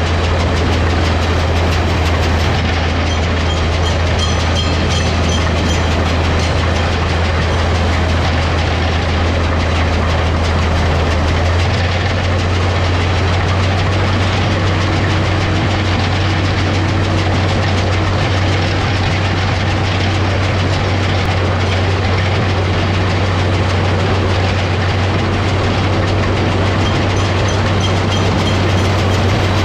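International 1256 tractor's diesel engine running steadily, working a New Holland round baler through hay, with a constant rattle of machinery over a deep drone. About a third of the way through, the engine note steps up slightly.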